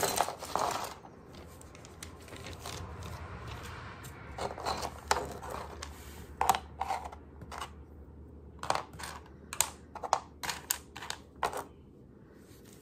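A plastic bag rustling as small 3D-printed PLA parts are shaken out of it, then a string of about a dozen sharp clicks and clatters as the hard plastic pieces are set down on a workbench one by one.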